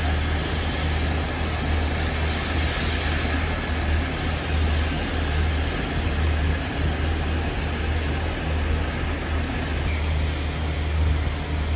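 Steam locomotive No. 85 'Merlin', a GNR(I) compound 4-4-0, getting under way slowly: an uneven low rumble under a steady hiss.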